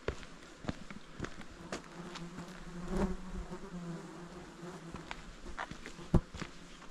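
A flying insect buzzing close past the microphone, growing louder to a peak about three seconds in and then fading away. Regular footsteps sound about twice a second throughout.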